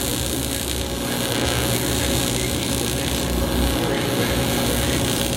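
Welding arc buzzing steadily as a flange is welded onto a supercharger intercooler pipe, a continuous rough noise with a hum under it.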